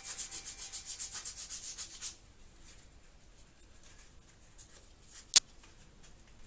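Fast, even rubbing strokes, like hand sanding, that stop about two seconds in. Then it is quiet apart from one sharp click near the end.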